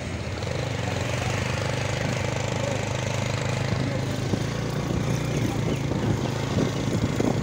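TVS motorcycle engine running steadily at low road speed, with wind rushing over the microphone and street noise around it.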